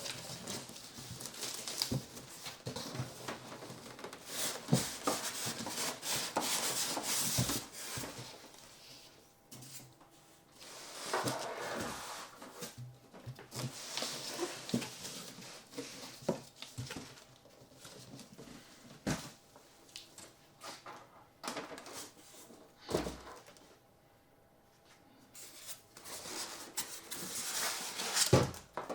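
Cardboard box and packaging being handled: irregular rustling with scattered knocks and clicks, quieter for a few seconds past the middle.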